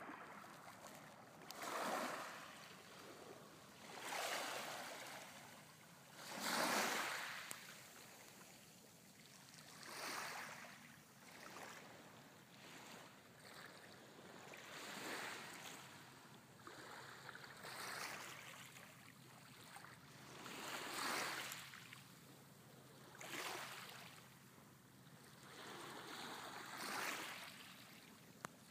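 Small waves lapping on a pebble shore: a soft wash of water rising and falling every two to three seconds.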